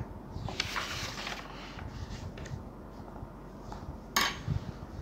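Paper rustling as a textbook page is turned, with a short crisp rustle about four seconds in as the page is laid flat.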